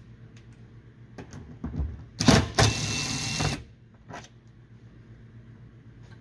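Cordless drill/driver with a T30 Torx bit spinning out a bolt, its motor running steadily for about a second and a half before stopping abruptly. A few light clicks of the bit and the fastener come before and after it.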